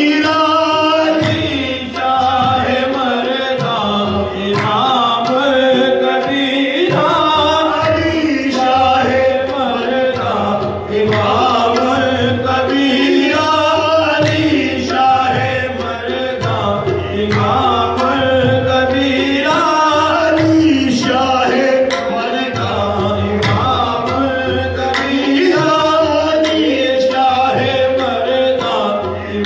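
Qawwali music: voices singing and chanting over tabla drumming.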